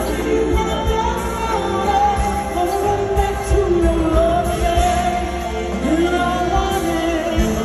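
A woman singing a slow R&B ballad live, long held notes that bend and slide, over a band with drums and bass, heard through a concert sound system.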